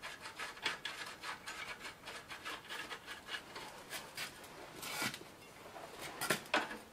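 Bicycle wheel axle nut being turned by hand onto its threaded axle against the spring washer: a run of faint small metal ticks and scrapes, with a few louder metal clicks near the end as the wrench is moved.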